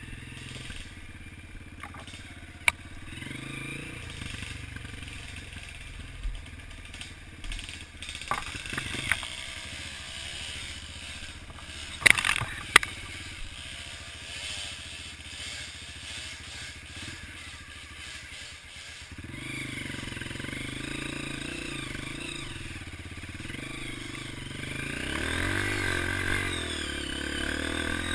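Off-road trail motorcycle engine running at low, uneven revs over rough ground, with a few sharp knocks and clatter. About two-thirds of the way through the engine gets louder and the revs rise and fall.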